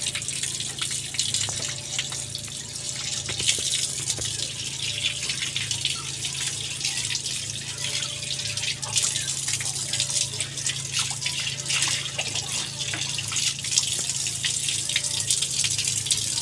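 Water running from a hose onto a wet concrete floor and splashing, with hands rinsing frog meat in a plastic tub of water: a steady rush of water broken by many small splashes and drips.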